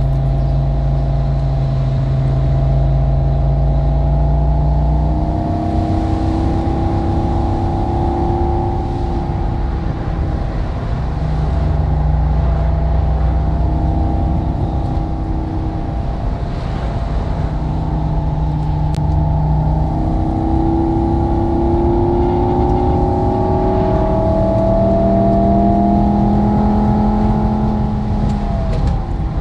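Simulated sports-car engine and exhaust sound from an engine-sound app, following the car's real revs: a steady low note, then a rise in pitch as the car accelerates, back to a steady note, then a second, longer climb that falls away near the end.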